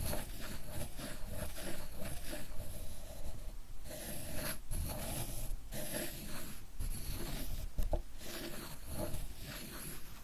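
Ink stick being ground on a Japanese inkstone: a continuous scraping rub made of many short back-and-forth strokes.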